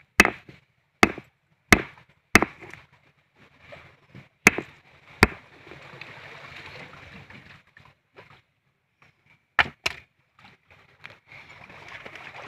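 A run of sharp knocks, about eight at irregular intervals: five in the first five seconds and two close together near the ten-second mark, with scraping, rustling noise between them.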